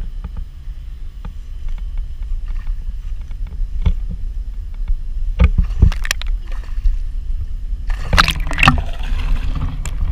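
Muffled water sounds heard from a camera held underwater: a low rumbling and gurgling with scattered clicks, then a louder burst of splashing about eight seconds in.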